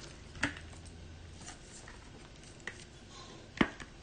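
Trading cards and their packaging being handled at a table: a few light clicks and taps, with a sharper snap about three and a half seconds in.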